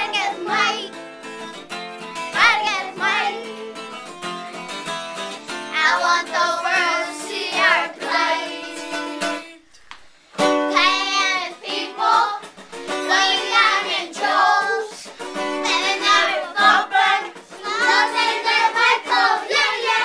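Children singing a song together with acoustic guitar accompaniment. About halfway through, the sound drops out for a moment, then the singing and guitar start again.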